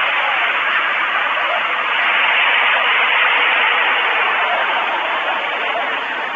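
Steady, loud static-like hiss on the stork nest camera's sound, with no distinct calls or knocks in it.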